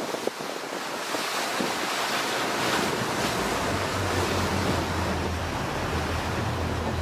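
Wind rushing over the microphone above the wash of open sea. It grows louder about a second in, and a strong low rumble joins about halfway through.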